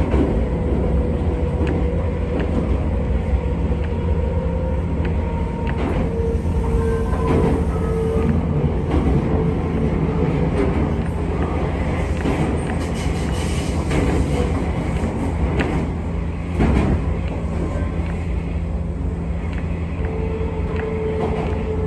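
Tobu 200 series limited express, DC traction motors under field-added excitation control, heard from inside the passenger car as it runs and slows into a station: a steady rumble of wheels on rail with occasional clacks and a faint tone that slides down in pitch.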